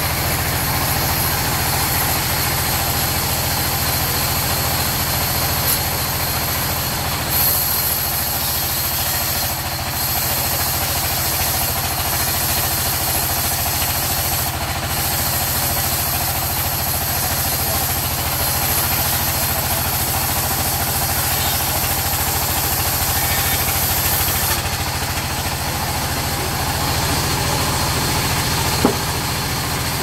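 Sawmill band saw running with a steady low drone, its blade cutting through a log with a high hiss that is strongest from about seven seconds in until about twenty-five seconds in. A single sharp knock comes near the end.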